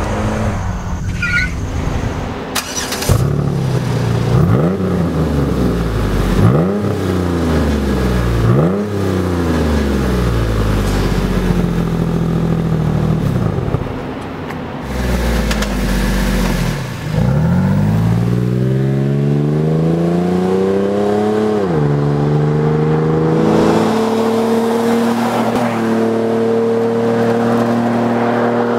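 Jeep Wrangler JK V6 exhaust through an aFe Rebel Series stainless steel cat-back with dual center-exit tips. It is revved sharply three times from idle, then pulls hard with the pitch climbing and shifts up, settling into steady running.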